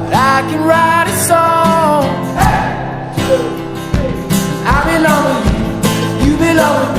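Background song: a sung voice over guitar and a steady beat.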